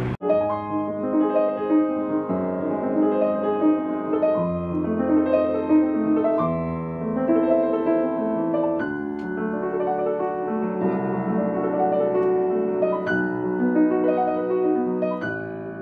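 Piano music: a steady flow of notes and chords.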